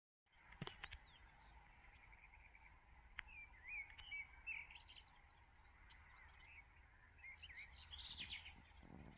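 Near silence outdoors with a low steady rumble, broken by faint bird chirps: a few short calls about three to five seconds in and another cluster near the end. A single sharp click comes just under a second in.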